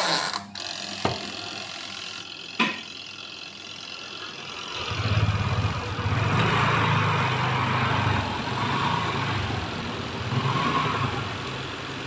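The spin timer knob clicking as it is wound, then about five seconds in the spin dryer of a Sharp twin-tub washing machine starts up. Its newly fitted spin motor runs the clothes-loaded drum up to speed with a steady hum and rush, now spinning fast instead of weakly.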